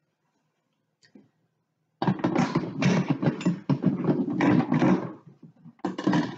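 Lid of an electric pressure cooker being twisted and worked into its locked position, loud scraping and rattling against the pot's rim starting about two seconds in, pausing briefly and starting again near the end; the lid is hard to lock.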